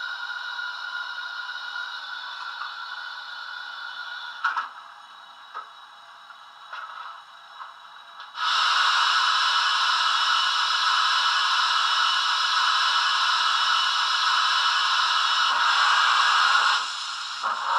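Steam sounds from the Wheeltappers DCC sound file on a Hornby K1 model locomotive, played through a small 22x13x6mm speaker in the tender. A quiet, steady steam hiss with a few light clanks is followed, about eight seconds in, by a sudden, much louder steady hiss of escaping steam that cuts back near the end.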